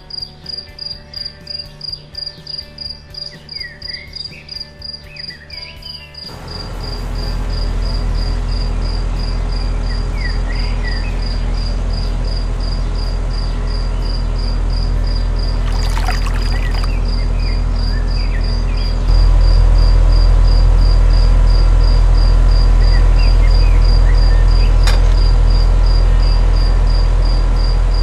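Crickets chirping in an even, pulsing trill. About six seconds in, a low steady hum starts and becomes the loudest sound: the small electric motor of a miniature crusher running as it grinds stones and soil. The hum steps up louder a little past halfway.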